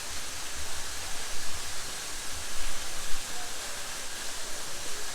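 Waterfall rushing: a steady hiss of falling water, with a few low, uneven rumbles underneath.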